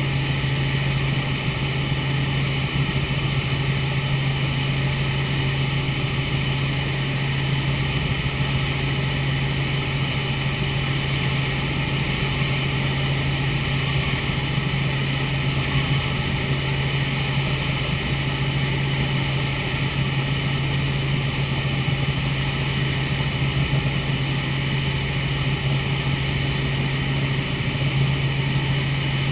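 Robinson R44 Raven II helicopter in cruise flight, heard inside the cabin: the engine and rotors make a steady drone with a deep hum and a thin high whine over it, unchanging throughout.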